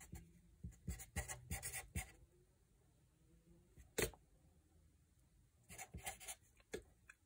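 Felt-tip permanent marker writing on paper on a clipboard: faint short pen strokes in two clusters, early and near the end, with a single sharp click about four seconds in.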